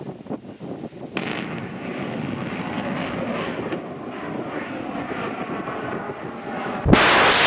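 Missile rocket motor heard from a distance after launch: a sudden onset about a second in, then a long steady rushing roar as it climbs away. Near the end a sudden loud bang.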